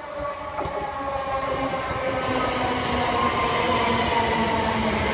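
c2c Class 357 Electrostar electric multiple unit running into the station, its traction motors whining in several steady tones over wheel and rail rumble. It grows louder for the first few seconds as the train comes alongside.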